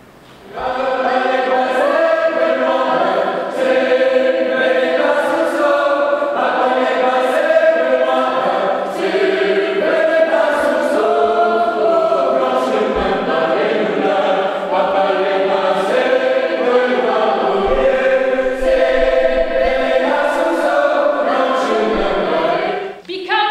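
Several voices singing a traditional song together, in a sustained chant-like line. The singing begins about half a second in and breaks off just before the end.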